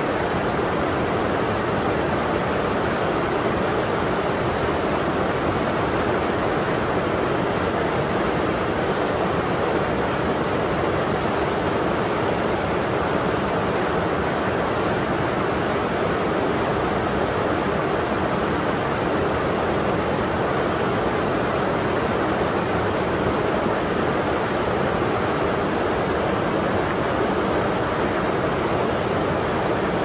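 Mountain stream water pouring over two small cascades between boulders into a pool: a steady, even rushing.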